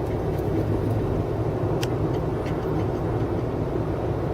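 Rough sea surf and wind making a steady low rumble, with a few faint clicks about two seconds in.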